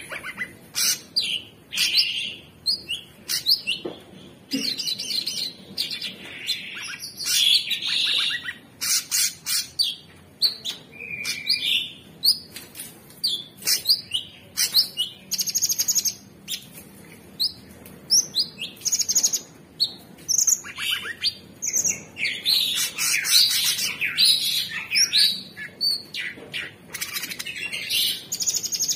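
Male orange-bellied leafbird singing vigorously: a fast, varied song of chirps, rapid trills and sweeping whistled notes, delivered in quick phrases with short pauses.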